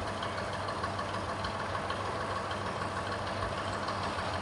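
Heavy engine idling steadily, an even low hum that does not change.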